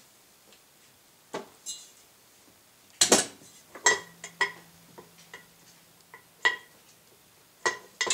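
Irregular metal-on-metal clinks and knocks from work on a truck driveshaft's U-joints, a dozen or so sharp strikes with a short metallic ring. The loudest cluster comes about three seconds in.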